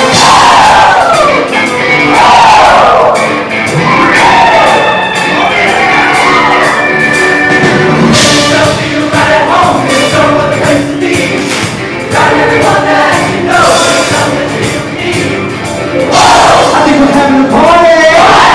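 A large show choir singing a loud, up-tempo number over instrumental accompaniment.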